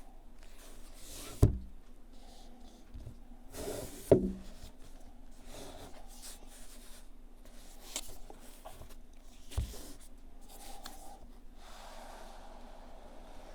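Unboxing handling noise: a box and its packaging rubbed and rustled by hand, with a few knocks as pieces are set down or the box is handled, the loudest about four seconds in.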